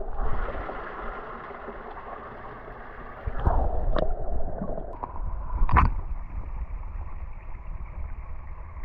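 Muffled underwater gurgling and rumble of stream water, heard through a camera submerged in the pool. A few sharp knocks come in the middle, the loudest about six seconds in.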